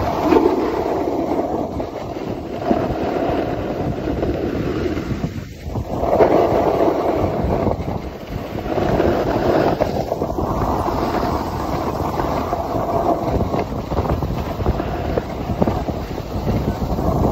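Wind rushing over the microphone, together with the rasp of edges sliding over packed snow while riding down a groomed ski run. The noise rises and falls in long swells, with a brief lull about five and a half seconds in.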